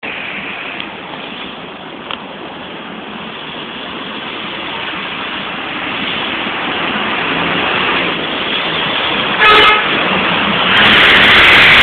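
Intercity bus sound growing steadily louder, broken about nine and a half seconds in by a short, loud horn blast, and followed near the end by a loud noisy surge.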